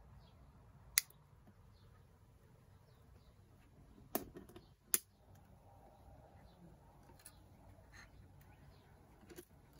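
Handling sounds of a ukulele being restrung: a single sharp snip about a second in from side cutters trimming the end of a black ukulele string, then two more sharp clicks around four and five seconds, with faint light ticking of the string being fed through and handled.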